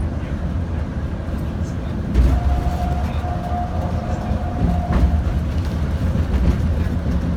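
Inside a moving tour bus, the engine and road noise make a steady low rumble. A knock comes about two seconds in, followed by a faint high steady tone lasting about three seconds.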